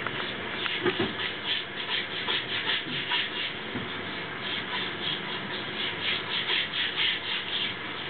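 A cat chewing a piece of tomato: quick, soft mouth and chewing sounds, about three or four a second.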